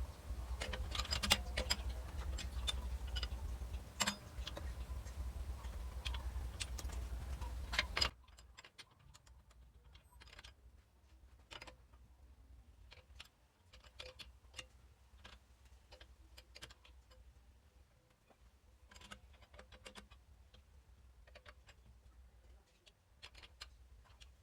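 A steady low machine hum with sharp metallic clicks and taps, cutting off suddenly about eight seconds in; after that only scattered light metallic clicks and ticks remain.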